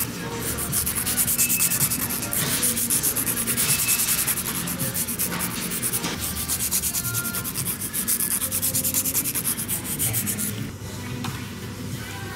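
A hand-held nail file rasping quickly back and forth across fingernails in fast, even strokes, shaping the nails. The filing stops about ten and a half seconds in.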